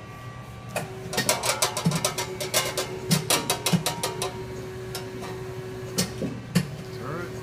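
Large CNC teach lathe (Victor 7080 DCL) running with its spindle slowly turning the 50-inch four-jaw chuck: a steady hum sets in about a second in and stops near the end, over a dense run of rattling clicks in the first few seconds.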